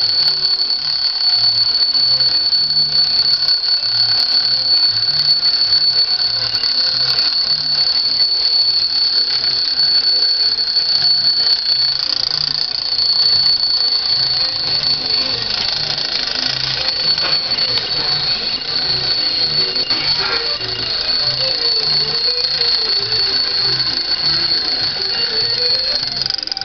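Tin lithographed toy sewing machine running, its metal mechanism giving a continuous rapid metallic ringing clatter over a slower knock about twice a second.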